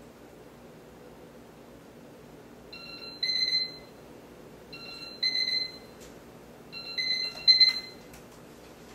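Electronic wake-up alarm beeping: a short two-note tone, a lower note then a higher one, sounds three times about two seconds apart, the last loudest. A faint steady hum underlies it.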